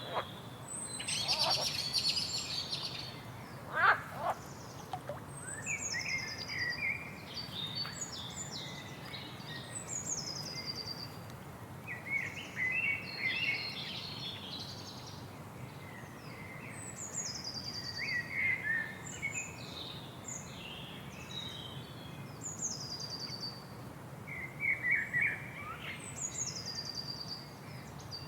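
Several birds calling and singing over a steady rush of water. A high, falling, trilled phrase comes again and again, mixed with quicker chirps lower down. The loudest sound is a short call about four seconds in.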